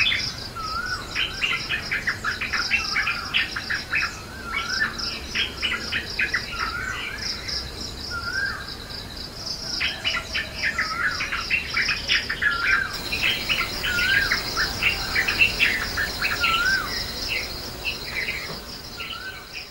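Birds chirping and calling in two bouts, with a short rising note repeated every second or two, over a steady high-pitched trill.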